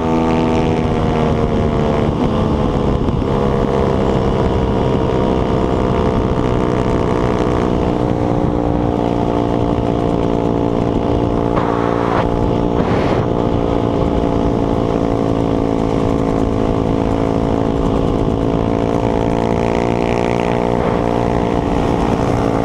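Lifan 150cc air-cooled single-cylinder four-stroke pit bike engine running under way at a steady cruise. Its pitch drops briefly in the first second, then holds even, with a short rush of noise about twelve seconds in.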